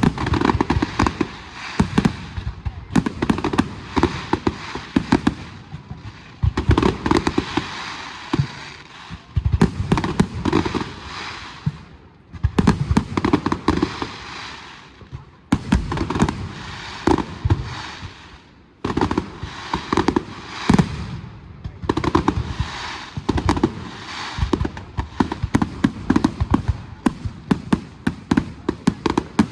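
A fireworks display going off: rapid volleys of sharp bangs and crackling that come in waves, with brief lulls every few seconds.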